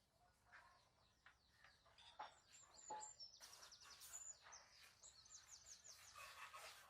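Birds chirping faintly, several calls overlapping, with quick runs of repeated high notes from about three and a half seconds in.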